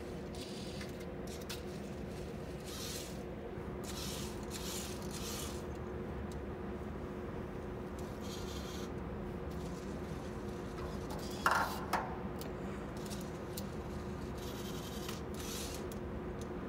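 VEX robot's electric motors whirring in short bursts as it drives and turns, over a steady hum. A sharp clunk about eleven and a half seconds in, followed by a smaller one, is the loudest sound.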